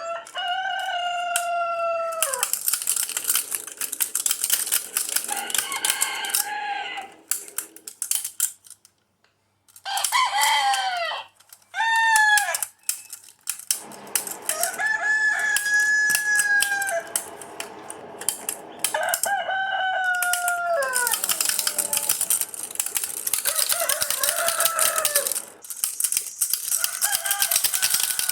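Rooster crowing about five times, each call held and then falling away at the end, with stretches of dense rapid clicking noise between the crows.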